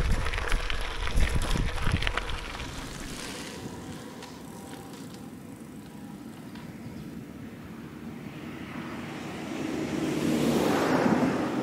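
Gravel bike tyres rolling over a gravel track with wind rushing on the handlebar-mounted microphone, full of small crunching clicks; after about three seconds this drops away to a quiet steady outdoor hiss. Near the end a broad rushing swell of noise rises and fades.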